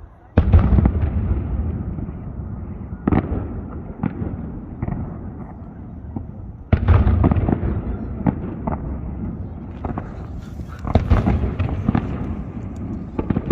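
Fireworks salute: heavy shell bursts about half a second in and again near seven seconds, each trailing off in a long low rumble. Sharper single reports come between them, and a quicker run of bangs and crackles follows near the end.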